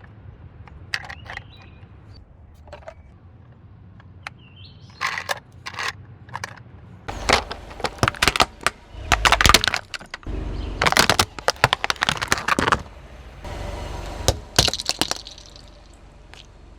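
Car tyre rolling over and crushing brittle objects. A few scattered snaps come first, then a long run of dense cracking and breaking over a low rumble, with a few more cracks near the end.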